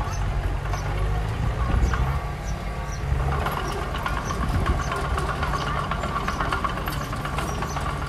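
Diesel engine of heavy earthmoving equipment running steadily, with a higher steady whine over it and light clanks.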